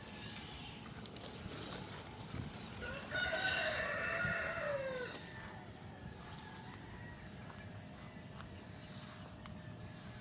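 A rooster crowing once, a single call of about two seconds that rises and then falls in pitch, starting about three seconds in.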